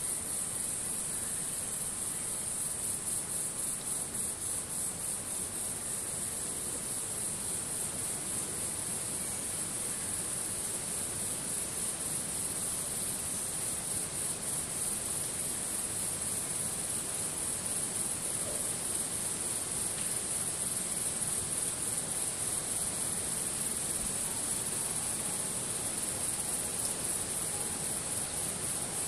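A steady, high-pitched chorus of insects trilling without a break.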